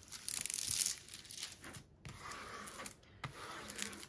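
Crinkling and rustling of a diamond painting canvas's plastic cover film as it is handled and a plastic tool is slid over it, loudest in the first second, then softer rustles and small clicks.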